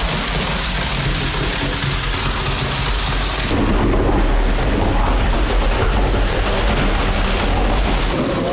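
Wet concrete being mixed and poured down into a hole: a loud, continuous rumbling wash of noise that changes sharply about three and a half seconds in.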